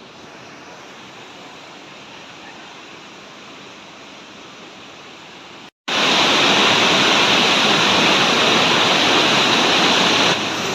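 Rushing river water, a steady hiss of water over rocks. It cuts out for an instant a little over halfway through and comes back much louder and closer, easing slightly near the end.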